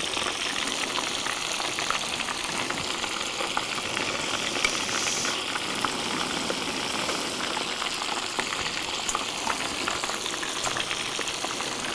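Hot oil in an electric deep fryer sizzling around dry-battered crappie pieces: a steady sizzle with fine crackling pops throughout.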